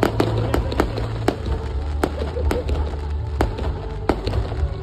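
Aerial fireworks bursting: a string of sharp cracks at irregular intervals, a few a second, over a steady low rumble.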